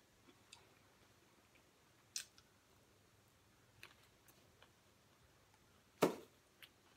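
Faint, sparse mouth clicks and lip smacks from someone eating fried chicken wings, with one louder, sharper mouth sound about six seconds in.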